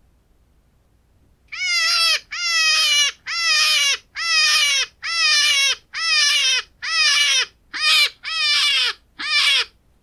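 A hare's distress squeals: about ten loud, pitched, crying calls in quick succession, each falling in pitch at its end, starting about a second and a half in. This is the squealing a hare gives when threatened.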